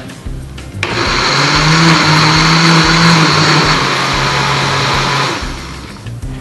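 Countertop blender running, puréeing sautéed chicken liver, onion, anchovies and capers into a smooth pâté. It starts suddenly about a second in and runs steadily, its hum dropping a little in pitch partway through, then winds down near the end.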